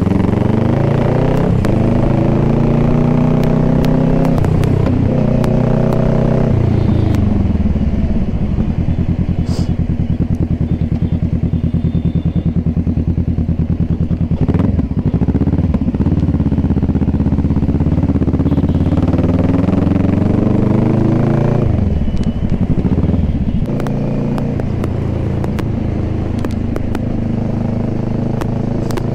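Kawasaki sport motorcycle engine running as the bike is ridden, its pitch rising and falling with throttle and gear changes. In the middle it holds a long steady, low, evenly pulsing run before it picks up again and settles lower near the end.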